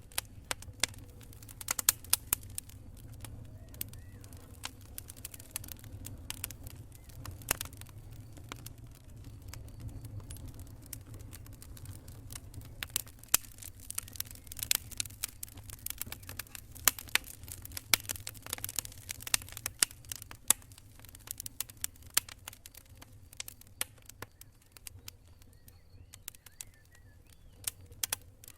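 Wood campfire crackling: irregular sharp snaps and pops of burning wood, thicker in the middle, over a steady low rumble.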